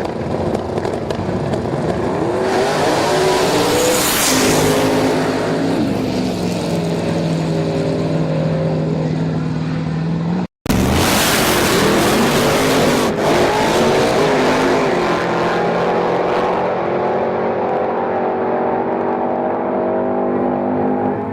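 Drag-racing cars accelerating hard at full throttle, engine pitch climbing in steps through the gears and then holding high. A sharp cut about halfway through leads straight into another run with the same rising engine sound.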